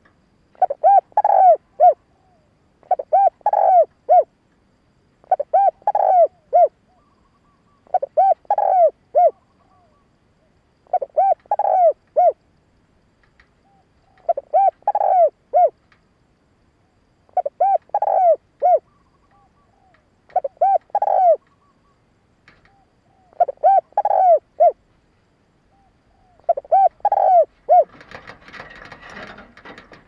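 Caged decoy spotted dove cooing its song over and over: a short phrase of three or four notes about every three seconds. A brief rustling noise near the end.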